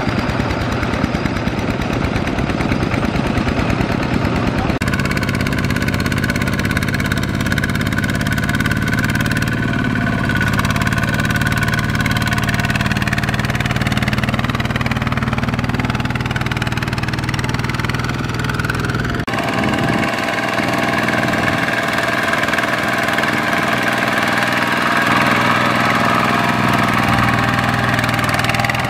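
Kubota ZT120 single-cylinder diesel on a two-wheel walking tractor, chugging steadily under load as it hauls a trailer of rice sacks through mud and water. Its sound changes abruptly twice, about 5 and 19 seconds in.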